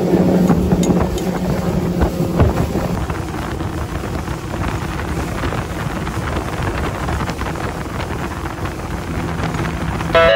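Yamaha 115 outboard motor running at cruising speed, a steady low hum under heavy wind rush on the microphone and rushing water from the hull and wake.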